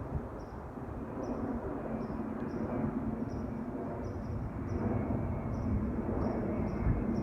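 Jet airliner engines rumbling, a steady low noise that grows a little louder near the end.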